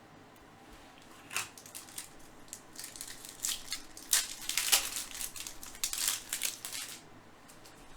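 Foil wrapper of a trading card pack being torn open and crinkled, in a run of sharp, irregular crackles from about a second in until near the end.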